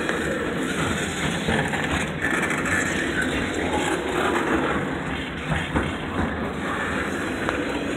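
Container cars of a freight train rolling past: the steady noise of steel wheels running on the rails, with a few light clicks from the wheels near the end.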